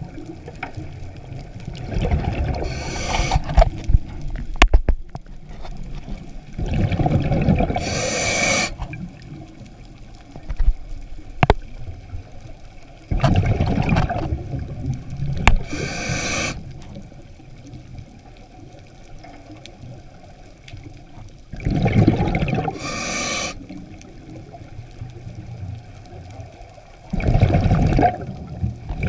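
Scuba diver breathing through a regulator, heard underwater: five loud breaths, each a rumble of bubbles with a hiss on top, several seconds apart. A few sharp clicks between the breaths.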